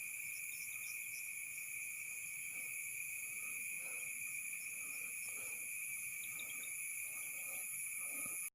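Night-time insect chorus of crickets trilling steadily at several pitches at once, cutting off suddenly near the end.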